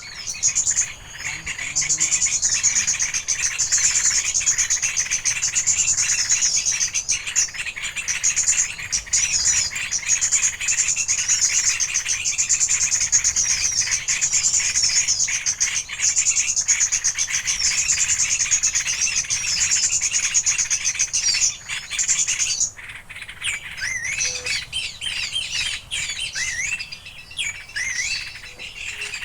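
Small birds calling: a continuous high, very rapid trill that cuts off suddenly about 23 seconds in. Quick separate chirps that drop in pitch follow it.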